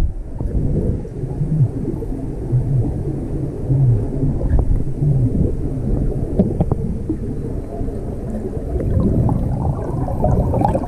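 Low underwater rumble picked up by an underwater camera beside a freediver on a descent rope, with a few short low hums in the first five seconds. Near the end a bubbling noise rises as bubbles pass the diver's face.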